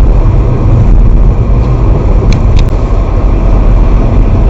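A car driving on the road, with a loud, steady low rumble of engine and road noise.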